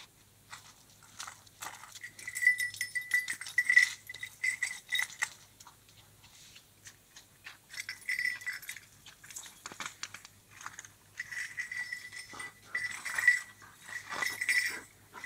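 Dogo Argentino dogs, a mother and her puppies, at rough play: high-pitched whining in runs of quick squeaky pulses, mixed with scuffling and small clicks from paws and mouths on the asphalt. The whines come in stretches a couple of seconds in, again around eight seconds, and more steadily through the last few seconds.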